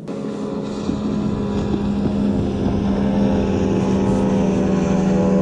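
Boat motor running at a steady pitch, swelling a little in the first second and then holding even.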